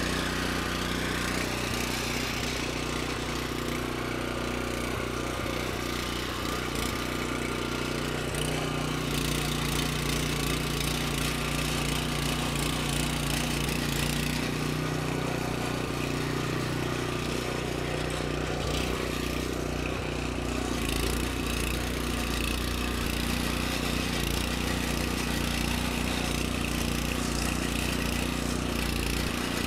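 Small gas engine of a rear-tine garden tiller running steadily as it tills a layer of soil amendment into the ground.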